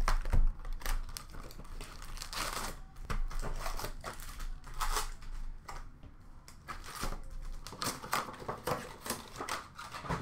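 Cardboard hobby box of hockey card packs being handled and opened, and the plastic-wrapped packs rustling and crinkling as they are lifted out and stacked. There are a few louder knocks near the start.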